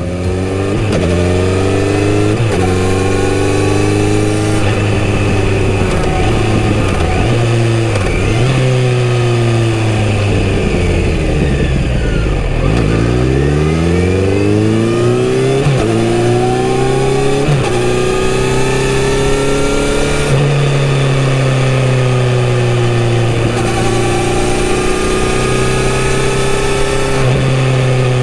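Kawasaki Z900RS's inline-four engine through its stock exhaust, heard from the saddle while riding. It revs up through several gear changes, falls away to low revs about twelve seconds in as the bike slows, then pulls away and climbs through the gears again with a rise in revs after each shift. Wind rushes on the microphone.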